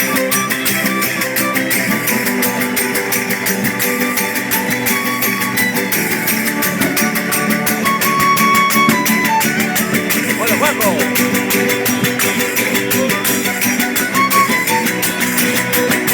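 A panda de verdiales playing: strummed guitars over a fast, steady beat of hand percussion, with pitched melody lines on top.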